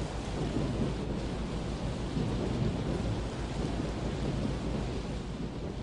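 Recorded thunderstorm effect at the end of a song: a low rolling thunder rumble over an even hiss of rain, slowly fading out.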